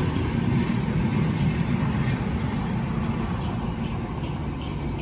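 Steady low rumble of a vehicle in motion, heard from inside, with a faint low engine hum and a few light ticks.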